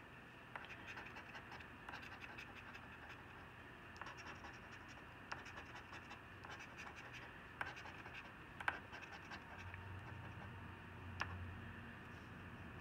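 Coin scraping the scratch-off coating from a lottery ticket: a faint, continuous run of scratching strokes, with a few sharper ticks where the coin catches the card.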